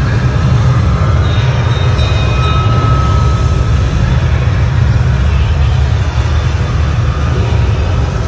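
Loud, deep, steady rumble of a simulated earthquake played over a theatre sound system.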